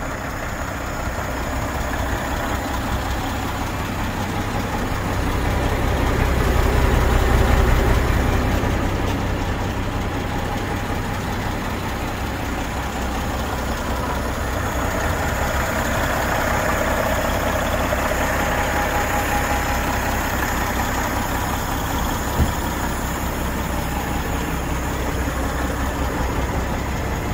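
MAN 9.168 truck's six-cylinder diesel engine idling steadily, a low rumble that grows louder for a few seconds around six to eight seconds in.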